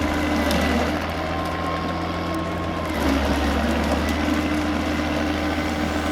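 An engine running steadily at an even speed, a low hum with steady pitched tones, getting slightly louder about three seconds in.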